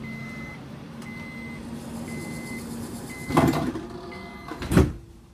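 Passenger train door-closing warning: a high beep repeating about once a second, then the sliding doors shut with two loud thuds about a second and a half apart.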